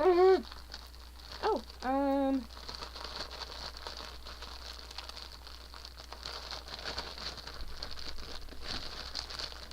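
Packaging crinkling and rustling as hands struggle to open it. In the first two or three seconds there are a few short strained vocal sounds, one of them held for a moment.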